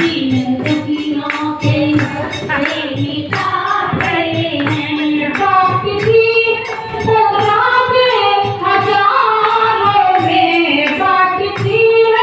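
A group of women singing a Hindu devotional bhajan together, with hand claps and jingling percussion keeping a steady beat under the melody.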